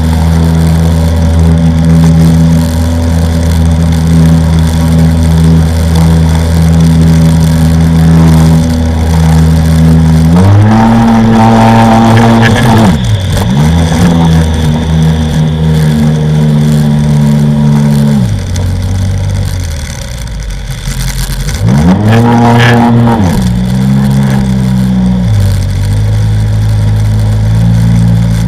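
Sea-Doo XP personal watercraft's two-stroke engine running at steady high throttle, then backing off about a third of the way in, with quick drops and rises in revs and a dip toward idle. It revs up and down once more before settling at a lower steady speed.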